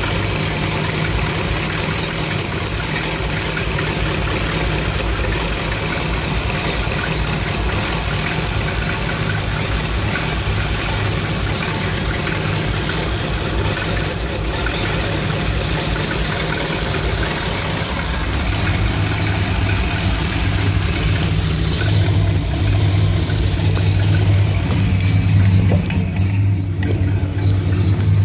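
1975 Dodge B200 van's Mopar 360 (5.9 L) small-block V8 with a two-barrel carburettor idling rough when warmed up. A new ignition coil has not cured the rough idle. The low engine hum grows louder about two-thirds of the way through.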